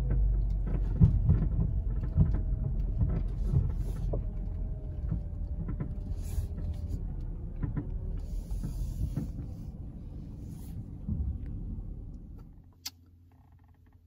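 Minivan rumbling as it rolls slowly over a dirt and gravel lot, with scattered knocks and crunches from the tyres. The rumble fades and falls away about twelve seconds in, followed by a single sharp click.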